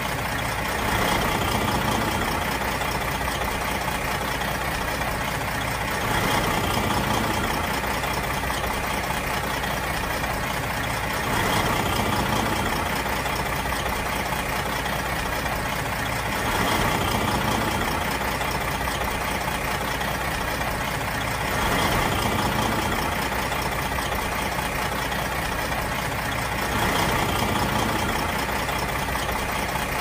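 Big truck diesel engine idling steadily, swelling slightly for a second or so about every five seconds.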